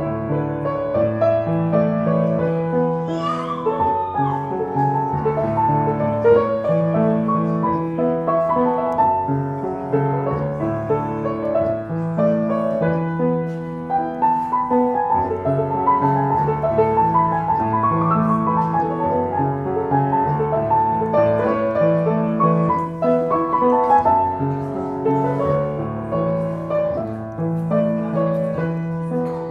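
Grand piano being played by hand: a flowing melody over held bass notes and chords.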